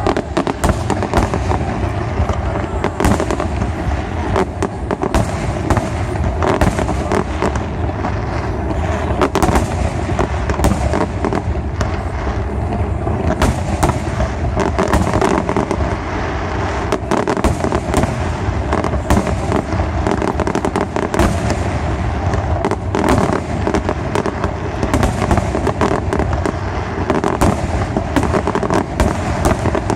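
A fireworks display: a dense, continuous barrage of shell bursts and crackling reports, many every second.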